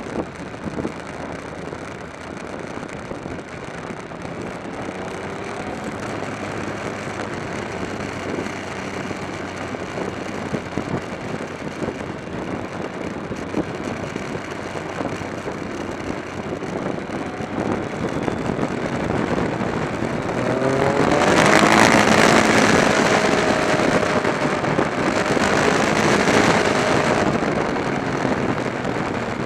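Onboard sound of a motorcycle ride: steady wind and road noise with the bike's engine running underneath. About two-thirds of the way through, the engine note climbs and the sound swells, then swells again a few seconds later.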